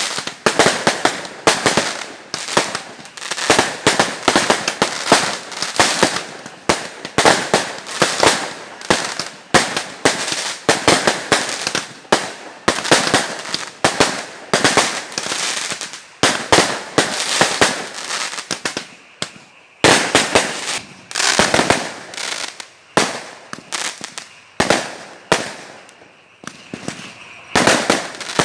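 Fireworks going off in a rapid, continuous barrage of sharp bangs and crackling, with the explosions spacing out a little over the last third.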